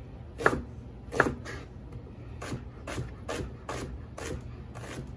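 Chef's knife fine-dicing a red onion on a plastic cutting board: sharp taps of the blade on the board. Two harder strokes come in the first second and a half, then a quicker run of lighter taps, about two or three a second.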